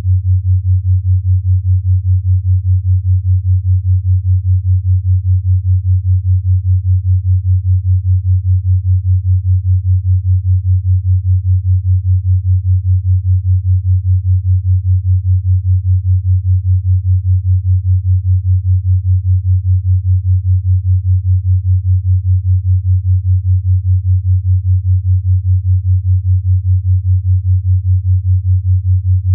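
5 Hz binaural-beat track: a steady low sine tone that pulses evenly about five times a second.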